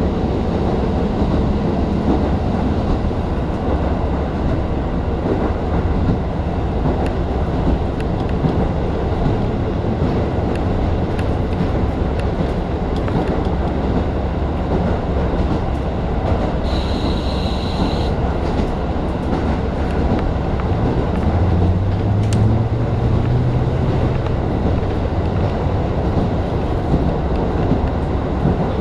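Diesel railcar running at speed, heard from inside: a steady rumble of wheels on rail and engine. A brief high-pitched squeal sounds about seventeen seconds in, and a low engine note rises for a few seconds after twenty seconds.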